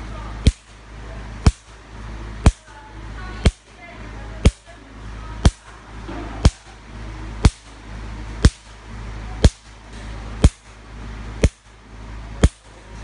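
Portable picosecond laser handpiece firing at black test paper, a sharp snap with each pulse about once a second, over a steady low hum.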